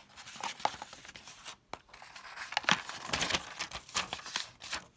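Soft wrapping paper rustling and crinkling in irregular bursts as it is lifted and folded back off the contents of a cardboard box.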